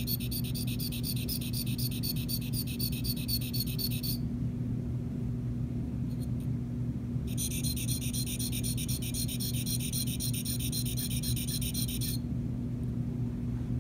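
Flat sharpening stone rubbed rapidly up and down against the cutting edge of a 204S posterior sickle scaler: a fast, rhythmic metal-on-stone scraping at several strokes a second. It comes in two runs of about four and five seconds with a pause of about three seconds between them. A steady low hum runs underneath.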